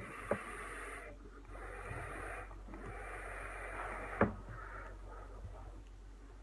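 Long draw on a Vaporesso Switcher box mod: air and vapour hissing through the tank atomizer, broken twice by short pauses over the first four seconds. A sharp click follows about four seconds in, then a softer hiss of vapour being exhaled.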